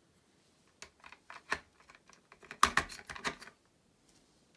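Small plastic clicks and taps from handling an RC radio transmitter and its batteries, a run of separate clicks with a louder cluster near the middle.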